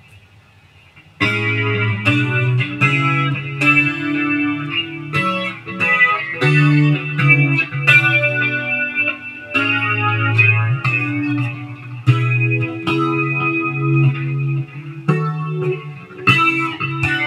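Electric guitar played through an Electro-Harmonix Deluxe Electric Mistress flanger and a Boss DD-20 digital delay in smooth mode, with the delay level at 50. After a brief lull, a run of picked notes and chords begins about a second in, each one ringing on into the next.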